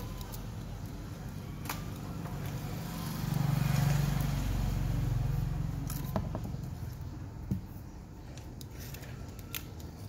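Scattered light clicks and taps from handling an electric water-pump motor's aluminium housing and copper-wound stator with a small hand tool, over a steady low background rumble that swells for a couple of seconds around the middle.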